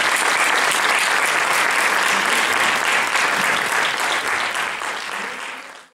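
Audience applauding, a dense steady patter of many hands clapping that fades out near the end.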